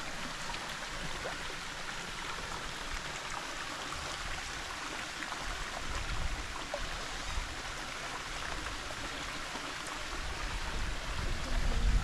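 Shallow stream trickling and splashing over rocks, a steady watery hiss. Low rumbles come in about halfway and again, louder, near the end.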